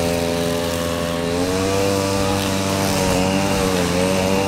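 A small engine running steadily in the background, its pitch wavering slightly and dipping a little a couple of times.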